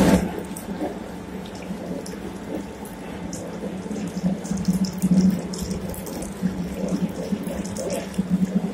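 Motor-driven rotary oil press (chekku) running, with a steady hum and a wet, liquid sound from the pestle working the oily seed paste.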